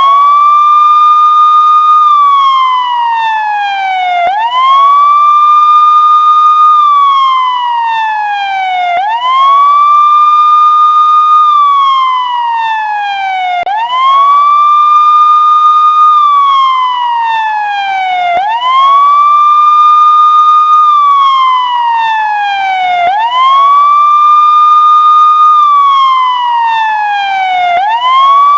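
Siren sounding a slow wail: each cycle sweeps up quickly, holds its top note for about two seconds, then slides steadily back down. The cycle repeats about every four and a half seconds, six times over.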